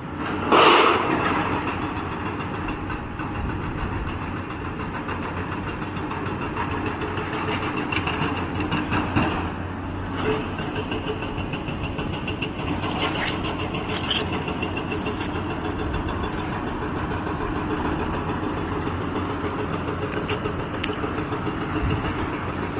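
Heavy construction machinery engines running steadily at a concrete pour, with a louder burst about a second in and a few brief sharp noises later.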